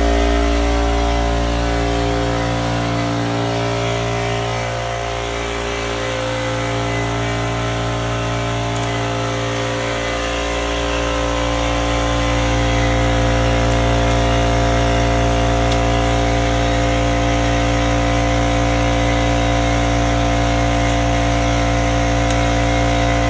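A motor-driven machine running at a constant speed, giving a steady hum of several even tones. It grows somewhat quieter for several seconds a few seconds in, then holds steady again.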